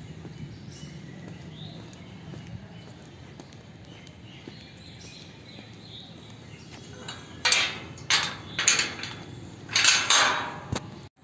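Steel flat-bar gate being handled and opened: a run of loud metallic clanks and rattles from its latch and bars in the last few seconds, after a stretch of faint background.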